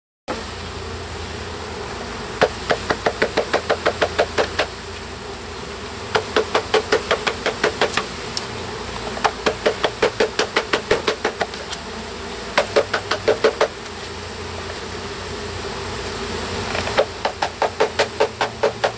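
Package of honeybees pounded upside down over a hive to knock the bees out: runs of rapid knocks, about five a second, come in five bursts of one to two seconds, over the steady buzzing of the bee swarm.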